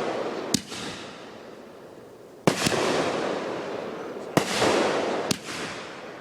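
Aerial fireworks bursting: four sharp bangs spaced irregularly, each followed by a long fading rumble.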